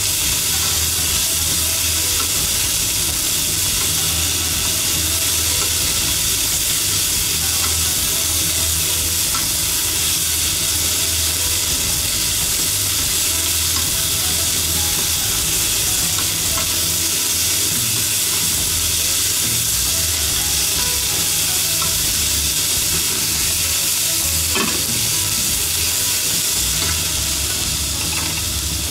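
Sliced green peppers sizzling steadily in oil in a nonstick frying pan while being stirred with wooden chopsticks.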